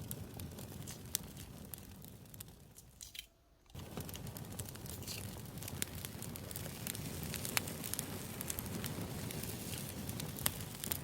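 Campfire crackling, with irregular sharp pops over a low rumble. It fades and cuts out almost completely about three seconds in, then comes back within a second.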